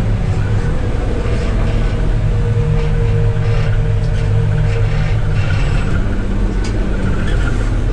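New Holland RG140B motor grader's diesel engine running steadily, a constant low drone, with a few faint clicks and rattles from the machine.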